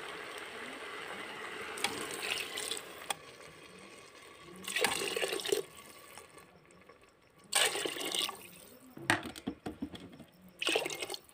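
Water poured into a pressure cooker over rice and vegetables: one steady pour for about three seconds, then several shorter pours.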